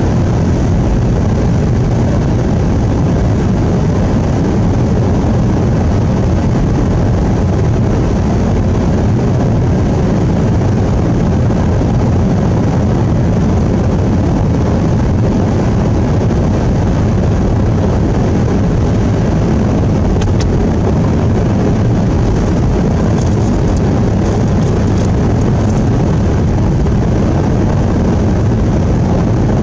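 Steady road and engine noise inside a vehicle's cabin while driving at highway speed on a snow-covered road, a continuous low rumble.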